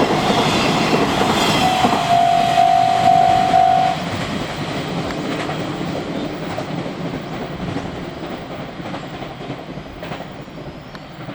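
Container freight wagons clattering over the rails at a level crossing, with the crossing's warning bell ringing in a rapid repeating ding until about four seconds in, when it stops. The train noise then fades steadily as the last wagons pull away.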